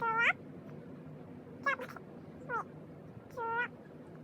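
Four short, high meow-like calls, each dipping and then rising in pitch, the first and last the loudest.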